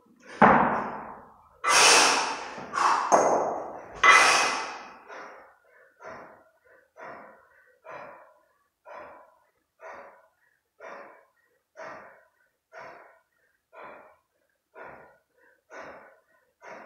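A kettlebell lifter breathing hard while holding two 32 kg kettlebells in the rack position between long-cycle reps. Several loud, forceful breaths come in the first four seconds, then short, sharp breaths settle into an even rhythm of about one a second.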